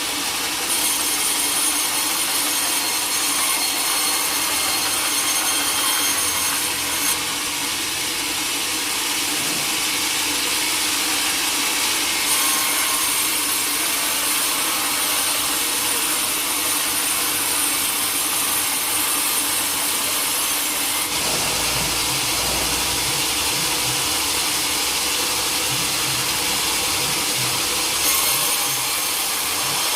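Sawmill saw cutting through a teak log: a steady, hissing cut that changes character abruptly a few times, with a low rumble joining about two-thirds of the way through.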